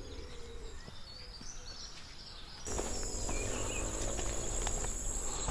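Insects making a steady high-pitched drone that cuts in abruptly about halfway through, over a low rumble; before that only faint outdoor ambience.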